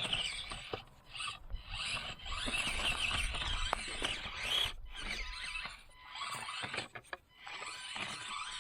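Axial SCX24 Deadbolt mini crawler's small electric motor and gears whining as it drives, a high-pitched whine with light clicks and ticks. It cuts out briefly several times as the throttle is let off and reapplied.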